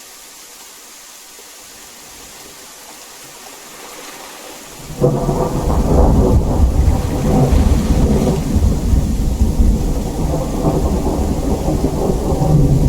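Steady rain hiss. About five seconds in, a sudden thunderclap breaks into a loud, low, crackling rumble that keeps rolling over the rain.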